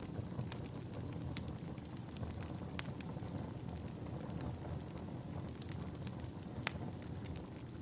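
Wood fire burning with a steady low rumble and scattered sharp crackles and pops, the loudest about a second and a half in, near three seconds and near seven seconds.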